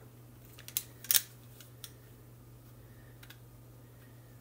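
A handful of light, sharp clicks from handling a small toy teaching clock and the little part that sets its hands, the loudest a little over a second in.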